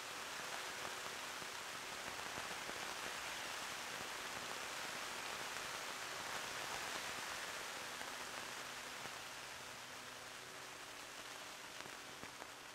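Steady rain falling on a tent, heard from inside it as a dense, even patter that eases slightly near the end.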